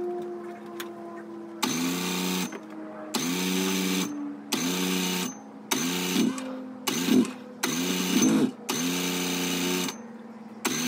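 Polaris two-stroke snowmobile engine being cranked over in about seven short tries of roughly a second each, with brief pauses between, without settling into a steady run.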